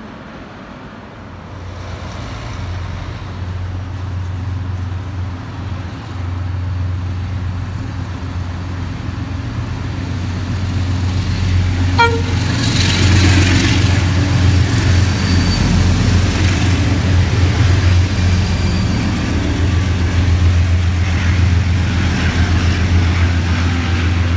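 Diesel freight locomotive approaching and running through, its engine a deep steady drone that grows louder, with a very short horn toot about halfway through as it reaches the platform. After that, the container wagons roll past with a louder rumble and hiss of wheels on rail.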